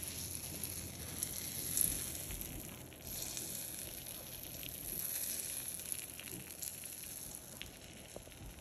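Low, steady sizzling with faint crackles as hot butter and pan juices are poured from a frying pan over a seared steak.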